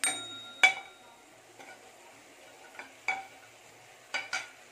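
Slotted metal spatula clinking and scraping against a plate and a kadai as fried chicken pieces are pushed into the vegetables: a sharp ringing clink at the start and a knock just after, then a few light knocks of stirring.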